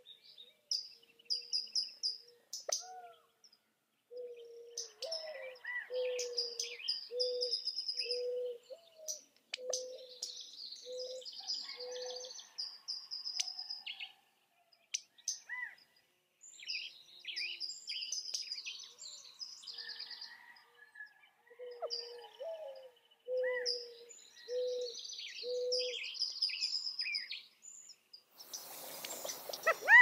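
Birds calling: a series of short low notes repeated a little under once a second, with higher chirps and trills over them, in two spells with a quieter stretch between. A loud rush of noise sets in near the end.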